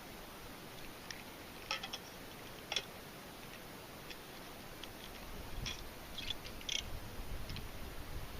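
Quiet background hiss with scattered light clicks and ticks, a few in quick clusters; a low rumble comes in about five seconds in.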